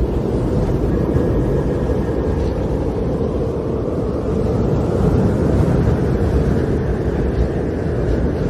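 Snowstorm wind blowing steadily as a dense, low rushing noise, swelling a little about halfway through.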